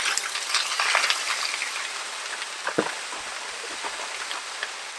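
Frozen diced vegetables sizzling on a hot, oiled Blackstone flat-top griddle, as the ice and freezer moisture on them hit the hot oil. It is a dense crackling hiss, strongest in the first second or so, that slowly dies down.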